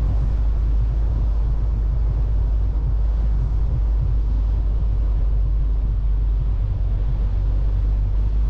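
Steady low rumble of a car driving along the road: engine and tyre noise at an even cruising pace.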